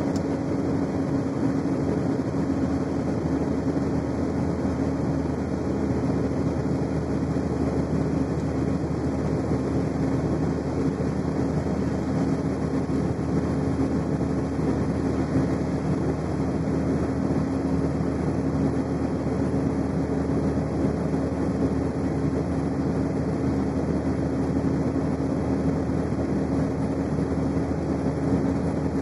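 Engine and tyre drone heard from inside a vehicle travelling at a steady cruising speed, with a constant hum throughout.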